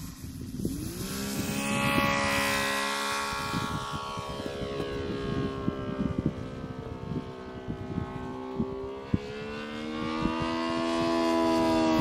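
Saito FG-19 R3 three-cylinder four-stroke gas radial engine of a model Yak-3U in flight, running through a collector exhaust. Its note swings up about a second in, holds and drifts slightly lower as the plane passes, then rises and grows louder near the end as it comes by again.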